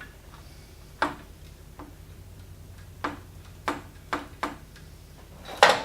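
Hand tools and metal parts clinking and knocking during disassembly of a milling machine head: about seven sharp, irregularly spaced clicks, the loudest near the end, over a low steady hum.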